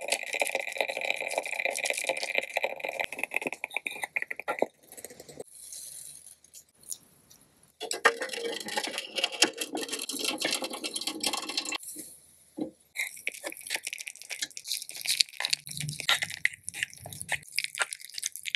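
Water boiling in a miniature glass pot, a dense crackling bubble for the first few seconds. Around the middle, water trickles and splashes as it is poured off into a small sink. In the last few seconds, noodles are stirred with sauce, giving scattered clicks and wet crackles as the utensil taps the glass.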